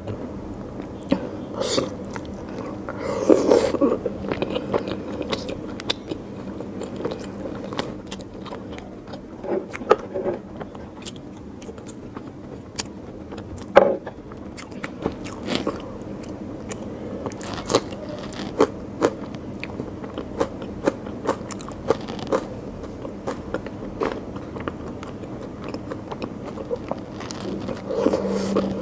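A person eating curry and rice by hand close to the microphone: steady wet chewing and mouth clicks, with a few louder bites standing out, the sharpest about fourteen seconds in.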